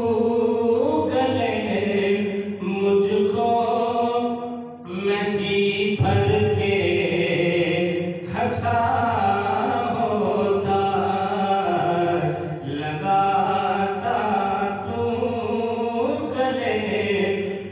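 A man reciting an Urdu naat solo into a microphone, with no instruments, in long held notes that bend and waver in pitch, with a few short breaks between phrases.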